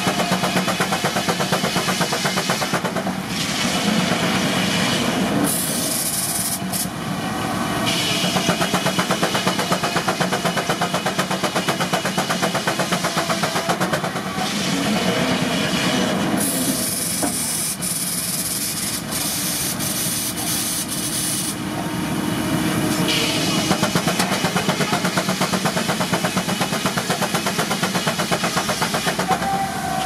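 Steam-powered circular sawmill at work: a Case steam traction engine's exhaust beats fast and evenly under the load of the saw cutting hardwood. Two long hisses break in, about six and seventeen seconds in.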